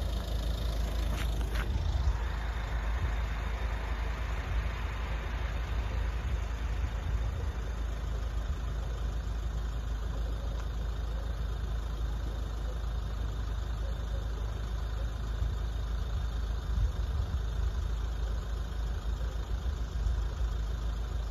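Steady low rumble of road traffic and idling car engines, with a car passing in the first few seconds.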